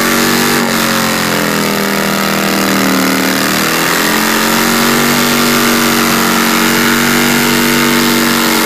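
A cruiser motorcycle's engine is held at high revs during a burnout, its rear tyre spinning on the platform. The engine note is steady and wavers a little in pitch over a constant hiss of tyre spin.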